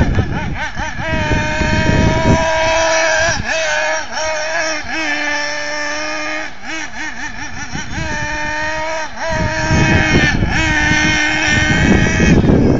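A 1:8 scale Carson Specter RC buggy's motor running with a high, buzzing note. Its pitch holds for stretches and wobbles up and down several times as the throttle is worked through drifts. Bouts of low rumbling noise come in at the start, again about nine seconds in, and on to the end.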